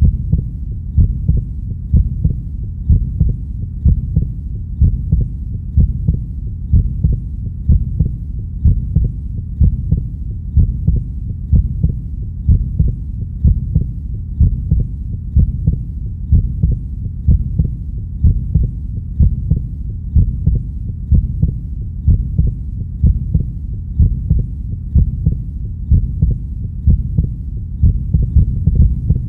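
A heartbeat sound: deep, low thuds in an even rhythm, about one beat a second, over a steady low hum.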